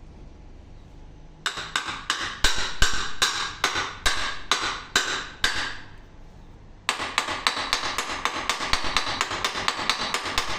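Hammer tapping repeatedly on metal, with a short ring after each strike, at about four to five blows a second. It comes in two runs: the first stops after about four seconds, and a second, slightly faster run begins about a second later.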